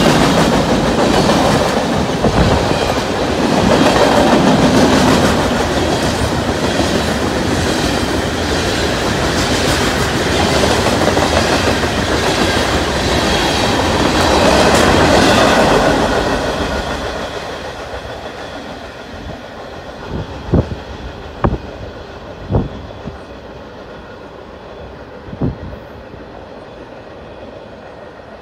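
Freight cars rolling past at speed on the rails, the wheel and car noise loud and continuous. It dies away over a couple of seconds about 16 to 18 seconds in as the end of the train goes by. A few sharp knocks follow in the last third.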